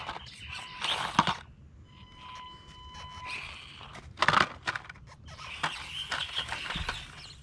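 Axial SCX24 1/24-scale RC crawler's plastic body and tyres knocking and scraping over rocks and crunching through dry leaves, with a loud clatter about four seconds in as the truck tips nose-down off a boulder.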